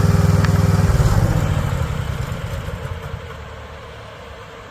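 A compact construction machine's engine running loud with an even pulsing beat, then dropping about a second in and fading steadily quieter.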